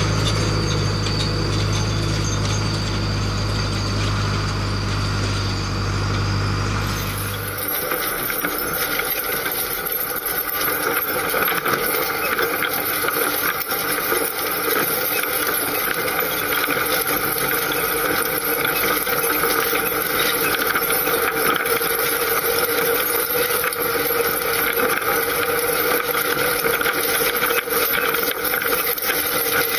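IHC 844-S tractor's four-cylinder diesel engine running steadily while pulling a steel meadow harrow over grass. About seven seconds in, the sound switches to a close pickup at the rear of the tractor: lighter engine hum with the irregular clatter of the harrow's steel frame and tines.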